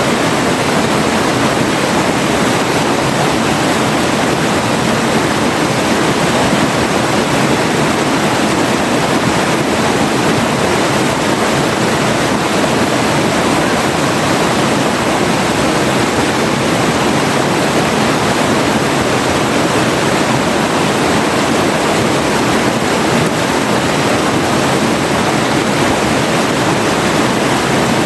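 River water flowing, a steady, unbroken rush of running water with no pauses or changes.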